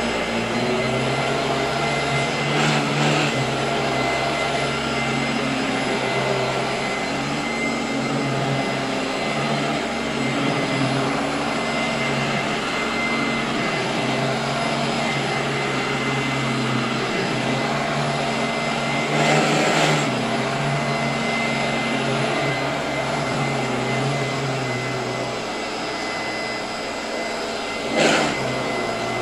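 Royal 18-inch vacuum cleaner running steadily, a constant motor hum with a thin high whine. It gives three brief louder bursts: about three seconds in, near the middle and near the end.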